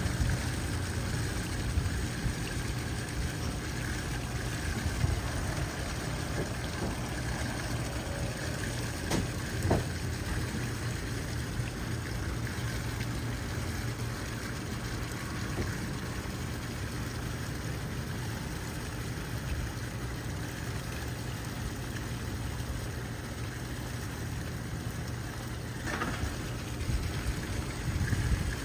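Water lapping and sloshing over a steady low rumble, with a few faint knocks.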